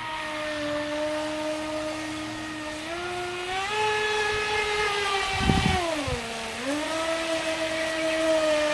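Brushless electric motor of a Feilun FT011 RC speedboat whining at speed, its pitch climbing about three seconds in, dipping briefly near six seconds and climbing again as the throttle and turns change. A brief low rumble comes about halfway through.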